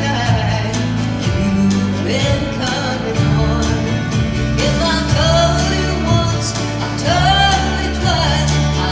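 Live country band playing with a woman singing lead: her voice over acoustic guitar, electric bass and a steady drum beat.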